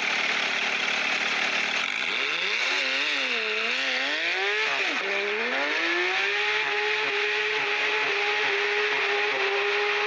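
An engine revving. Its pitch climbs and dips in a few quick swells, drops sharply about five seconds in, then rises again and holds a steady high rev.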